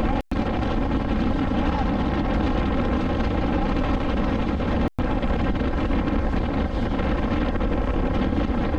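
A BMW S1000XR's inline-four engine runs steadily while the motorcycle is ridden along, heard from the rider's chest-mounted camera. The sound cuts out completely for an instant twice, once just after the start and once about halfway through.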